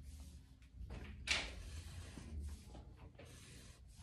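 Felt-tip marker strokes scratching on paper, faint, with one louder swish of a stroke about a second in.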